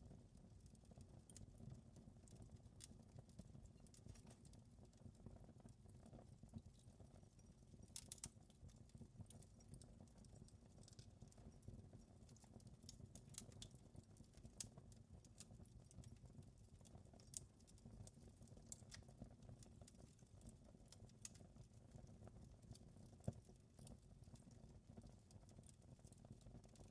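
Wood fire crackling in a fireplace: scattered, irregular snaps and pops over a low steady rumble, with one sharper pop near the end.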